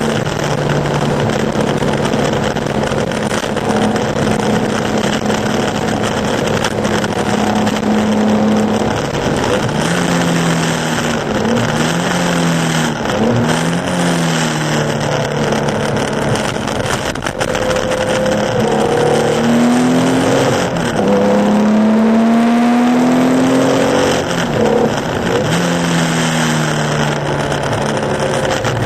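Porsche 911 2.0 air-cooled flat-six racing engine held at steady high revs, then revs repeatedly dropping and climbing through gear changes, with a long climb in revs about two-thirds of the way through. A steady hiss of spray and road noise from the soaked track runs underneath.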